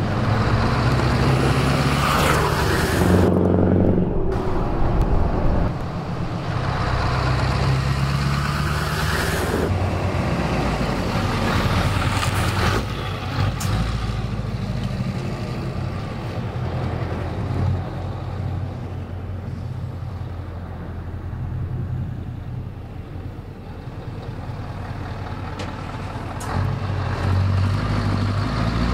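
Scania 164 truck's V8 diesel engine running as the tractor unit drives past, its note rising and falling as it accelerates. It fades through the middle and grows louder again near the end.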